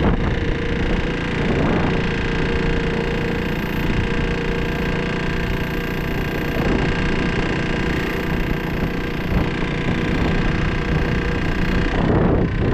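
KTM RC 200's single-cylinder engine running with a very bad, harsh noise from the engine: the sign of internal damage from running with low oil pressure.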